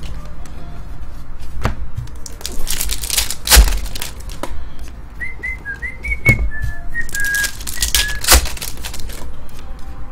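A person whistling a short tune in separate notes for about three seconds, starting about five seconds in, over the clicks and taps of trading cards being flicked and shuffled by hand.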